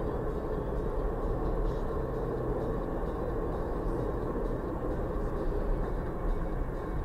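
Steady road and engine noise of a car driving, heard from inside the cabin.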